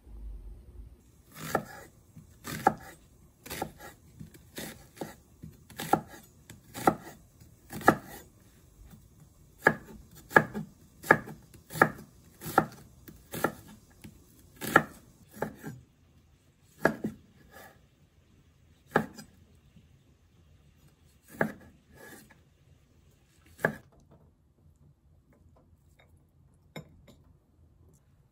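Kitchen knife chopping an onion on a wooden cutting board: crisp, regular strokes a little more than one a second, slowing to a few widely spaced cuts and stopping near the end.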